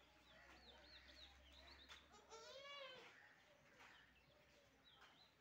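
A young goat kid bleats once, a single high call of about half a second about halfway through. Faint short high chirps come before and after it.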